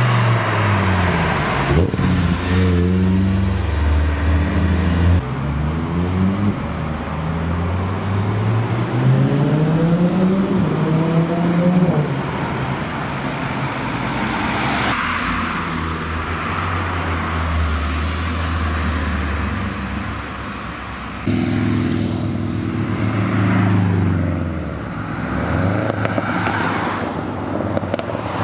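Sports car engines accelerating hard past the roadside, an Audi R8 Spyder first, its engine pitch climbing again and again as it pulls away. Near the end a Subaru Impreza WRX STI revs up and pulls away.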